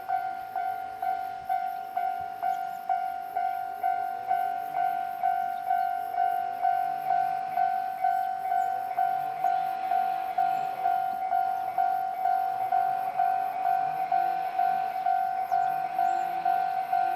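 Japanese level-crossing warning bell ringing steadily, about two strikes a second, while a train runs through the crossing.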